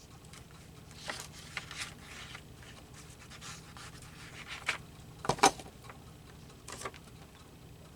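Paper being handled on a collage page: rustling and scraping as cut-out pieces are moved, with a few sharp taps, the loudest about five and a half seconds in.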